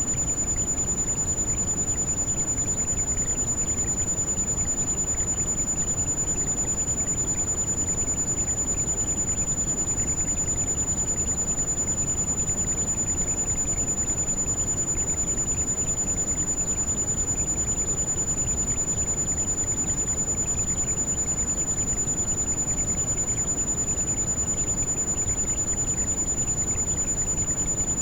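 Heavy rain as a steady, even rushing noise, weighted toward the low end, with a constant high-pitched pure tone laid over it, a tinnitus-like tone.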